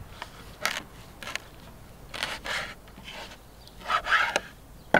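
Broad kitchen knife blade scraping and sliding sprats across a wooden cutting board in several short strokes, the longest about four seconds in, with a sharp click at the very end.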